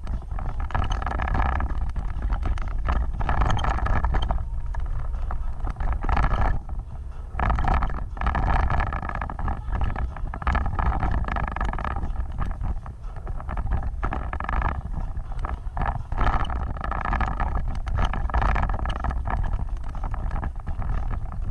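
Off-road vehicle driving, its engine running steadily, with wind rumbling on the microphone and frequent knocks and rattles.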